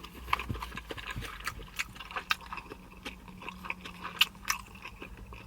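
A person chewing a mouthful of pasta: scattered small wet clicks and smacks of the mouth, over a faint low steady hum.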